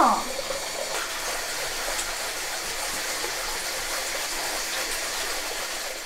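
Water running steadily into a bath, an even rushing hiss that fades out near the end.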